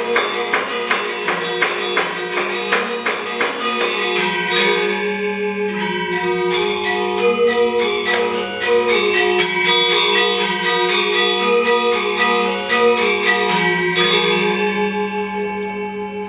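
Balinese gender wayang music: bronze-keyed metallophones struck in rapid runs of ringing tones. About 14 seconds in the striking stops and the keys ring on with a pulsing shimmer as they fade.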